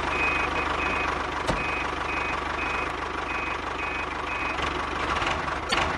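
Vehicle reversing alarm beeping about twice a second over a steady engine sound, as the toy tractor backs up its trolley. The beeping stops about four and a half seconds in, while the engine sound runs on.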